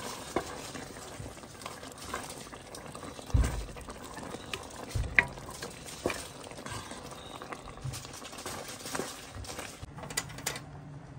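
Pot of chicken and vegetable soup bubbling at a boil while being stirred with a wooden spoon, with scattered clicks and a few soft knocks of the spoon against the pot, the strongest about three and five seconds in.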